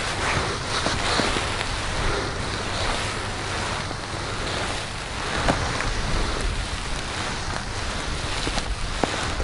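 Wind buffeting the microphone on open ice: a steady rushing noise with low rumble, and a single faint click about five and a half seconds in.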